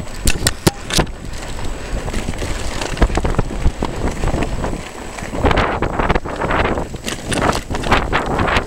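Mountain bike rattling over a rocky track, tyres crunching on loose stones and the frame clattering, with wind buffeting the microphone. Several sharp clacks come in the first second, and hissing surges of tyre and wind noise build in the second half.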